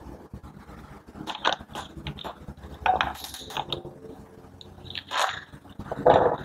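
Metal hand tools clicking and scraping against the timing-belt tensioner of a 1.4 HDi diesel engine as the belt is re-tensioned, in short irregular bursts.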